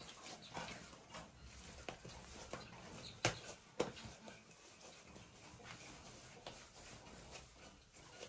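Hands kneading and pressing oiled chapati dough on a tiled countertop: faint squishing and rubbing, with two sharper pats a little past the middle.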